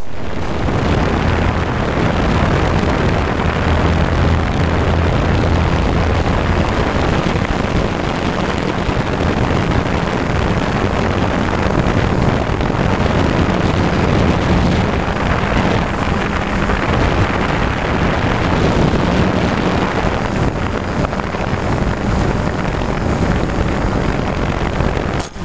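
Small electric multirotor drone in flight, heard from its own onboard camera: steady whir of the motors and propellers with a low hum, and wind rushing over the microphone.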